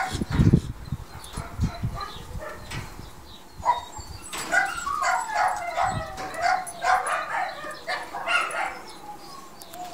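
A dog whining and yipping in a run of short, high calls that fall in pitch, most of them in the second half. There are low thumps in the first couple of seconds.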